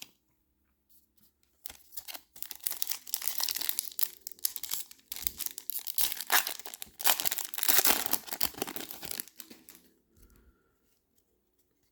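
Foil wrapper of a football trading card pack being torn open and crinkled, a crackling tearing noise that starts about two seconds in and stops a little before the end.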